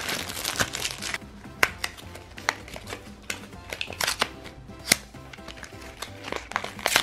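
Soft background music under sharp plastic clicks and crinkles from a packaged toy plastic shopping basket being handled and opened.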